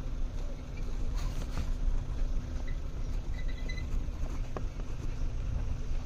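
Safari vehicle's engine running slowly, a steady low rumble with a constant hum, with a few scattered knocks and faint high chirps over it.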